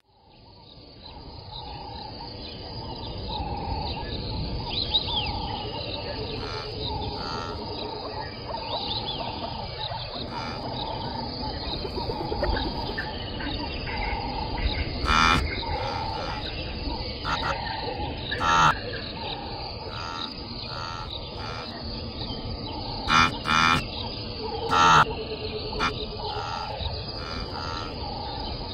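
Wild grassland ambience fading in: steady background with birds chirping and insects, and now and then a louder short animal call, several close together near the end.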